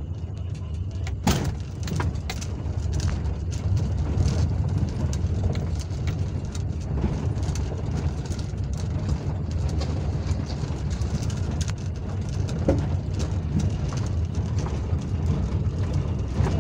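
Car cabin noise while driving: a steady low rumble of engine and tyres on the road, with scattered knocks and rattles from the car going over an uneven surface.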